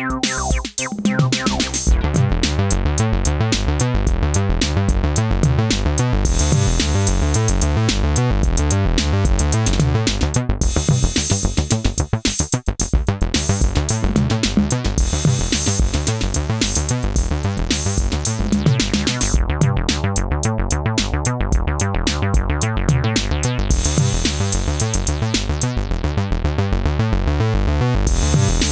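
Synthesizer bass line sequenced over a drum machine beat, with a brief dip about twelve seconds in.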